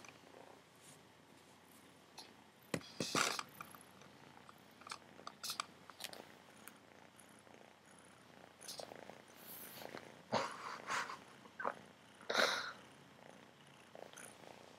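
Tabby kitten purring softly, held close to the microphone. Scattered short rustles and bumps come from fur and hands brushing against it.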